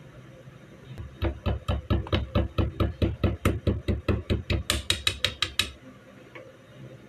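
Small hammer tapping a pin into a Beretta 92FS pistol's frame: a quick, even run of light metal taps, about four or five a second, the last few sharper and ringing before they stop.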